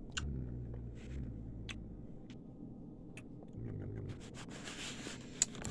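Mouth sounds of a man eating cotton candy: scattered wet clicks and lip smacks, a soft smacking crackle near the end, and low closed-mouth "mmm" hums twice.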